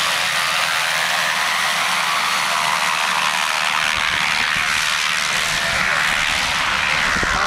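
Single-engine propeller plane's piston engine and propeller running steadily at taxi power as it moves away across the airfield, with irregular low rumbling added from about halfway through.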